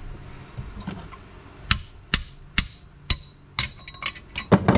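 Hammer striking a punch to drive the reverse idler gear pin out of a Willys T-90 transmission's cast-iron case: sharp metal-on-metal strikes with a ringing tail, about two a second, starting a little under two seconds in and loudest near the end.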